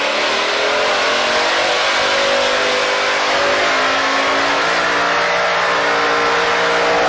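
Car engine accelerating, its pitch rising slowly and steadily throughout, over a loud rushing noise.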